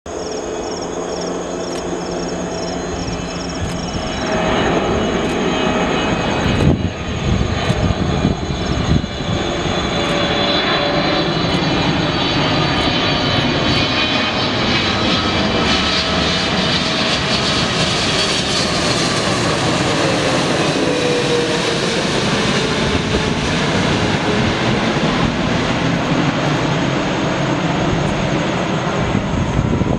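Jet airliner's engines running loudly close by, swelling about four seconds in, with a tone that slides down in pitch as the aircraft passes. A few low thumps, like wind on the microphone, come between about six and nine seconds.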